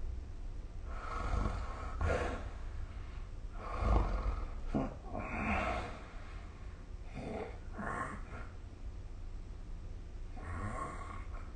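A sleeping person snoring and breathing noisily, in irregular breaths every second or two, the loudest about four seconds in, over a steady low hum.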